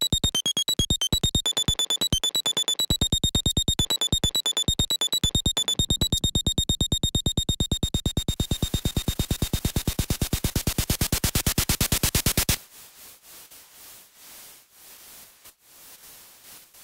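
Electronic music of rapid clicking pulses with high beeping tones, which speed up into a dense stream of clicks and a swelling hiss, then cut off suddenly about three-quarters of the way in, leaving only faint noise.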